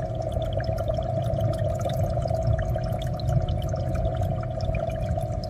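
Aquarium water bubbling and trickling, with many small drips and splashes over a low rumble and a steady hum underneath.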